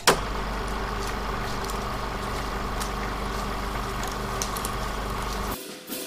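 Film projector running: a steady mechanical whir with a low hum and scattered clicks, cutting off suddenly shortly before the end.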